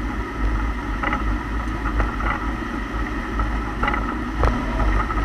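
Steady low driving rumble with a handful of short, sharp clunks at uneven intervals from a 2008 Lexus IS F's rear differential. The clunks come from its completely worn pinion and rear differential bushings.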